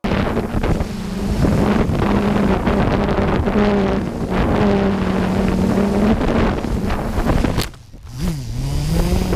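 Xugong FPV plane's electric motor and propeller running at a steady pitch, heard from the onboard camera under heavy wind rush, while the plane flies on a low battery. Near the end the sound drops away, and a lower tone dips and rises again.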